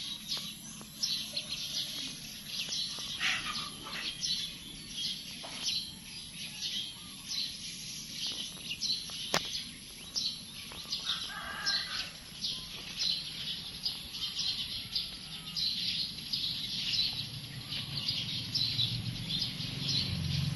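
Birds chirping: many short, high chirps in quick succession, over a steady thin high-pitched tone, with a low rumble building toward the end.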